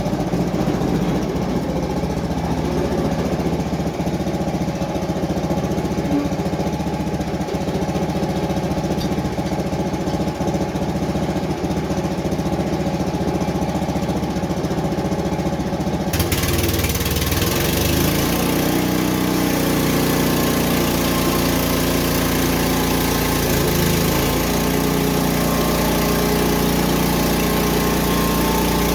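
Engine of a Frontier OS23 portable band sawmill running steadily. About halfway through, a steady hiss suddenly joins and the engine note shifts, as if the blade has gone into the wood.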